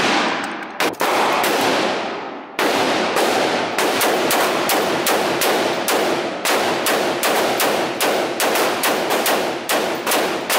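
Semi-automatic gunfire on an indoor range, each shot ringing off the walls: three quick shots, a pause of about a second and a half, then a steady string of shots at about two to three a second.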